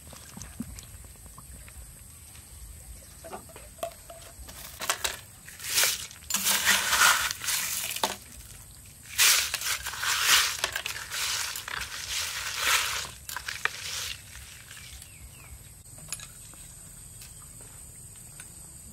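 Crushed ice scooped with a metal ladle and tipped into a glass bowl, crunching and clinking in several bursts between about five and fourteen seconds in.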